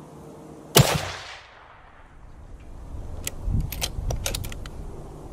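A single shot from a scoped rifle firing a handloaded 168-grain round, a little under a second in, its report dying away over about half a second. It is followed after about three seconds by a run of sharp metallic clicks and some low handling noise.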